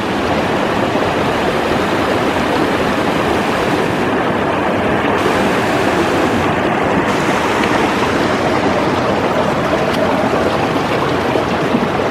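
Small mountain spring creek rushing steadily over rocks where it runs out from under the scree; a loud, even water noise.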